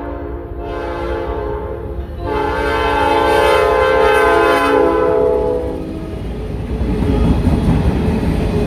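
Diesel freight locomotive's multi-note air horn at a grade crossing: one blast ending about half a second in, a second ending about two seconds in, then a long, loudest blast lasting to about six seconds. After the horn stops, the steady low rumble of locomotives and freight cars rolling past, with wheels clacking over the rail joints.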